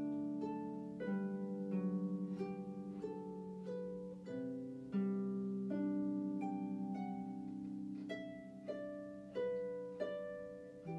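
Background instrumental music: plucked notes in a slow melody over held low notes.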